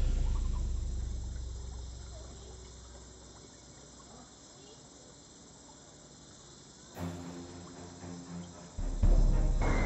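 Background music fading out, leaving a faint steady chirring of crickets or similar insects. Music starts up again about seven seconds in and is loud near the end.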